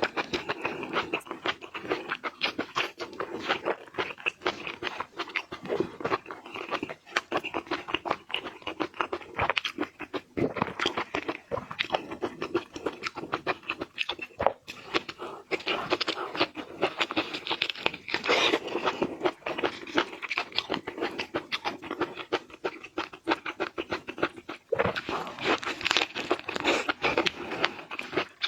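Close-miked eating of seafood: a dense, unbroken run of crunching and chewing.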